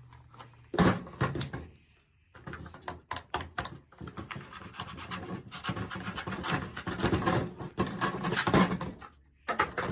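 Box contents and packaging of a toy blaster being handled: a few sharp knocks about a second in, then continuous scraping and rustling.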